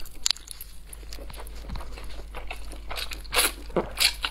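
Close-miked eating of black bean fire noodles: chewing with small wet mouth clicks, and a couple of short slurps near the end.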